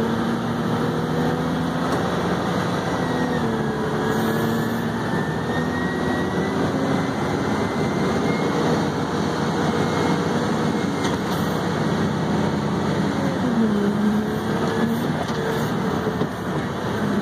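Haul truck's diesel engine running under way, heard from inside the cab; its pitch dips and comes back up twice, a few seconds in and again near the end, with a faint high whine above it.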